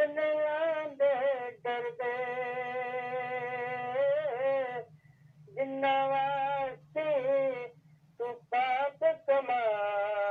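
A man singing unaccompanied over a telephone line, holding long notes with wavering pitch, in phrases broken by short pauses. The sound is thin and narrow, like a voice through a phone, with a steady low hum underneath.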